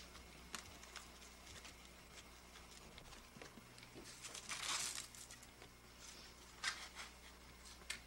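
Faint rustling and scattered light clicks, with a louder rustle about halfway through, over a steady low hum.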